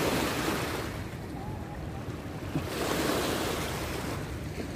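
Strong river current running fast, with wind gusting on the microphone in swells.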